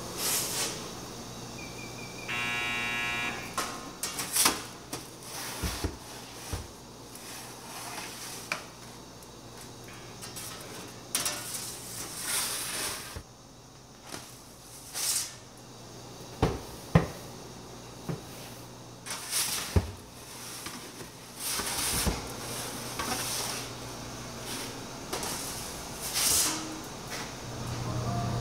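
Kitchen work clatter: scattered knocks and clinks and short hissing bursts over a steady low hum, with a brief pitched tone about two seconds in.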